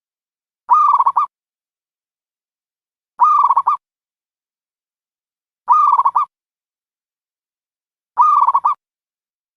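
Dove cooing: four identical short, quavering calls, one about every two and a half seconds, with dead silence between them.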